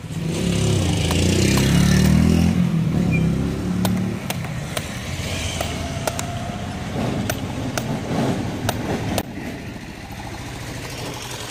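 A motor vehicle's engine running close by, loudest over the first two or three seconds and then fading. Sharp clicks of a curved blade cutting the husk of a young toddy palm fruit recur throughout.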